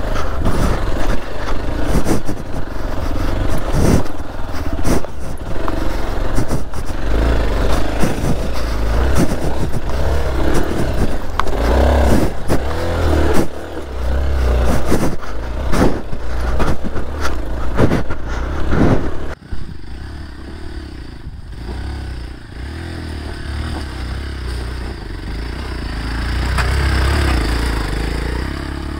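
Hero Xpulse 200's single-cylinder engine labouring up a steep rocky trail, with clattering and scraping of the bike over rocks. About two-thirds of the way through, the sound drops suddenly to a quieter, steadier engine note that swells again near the end.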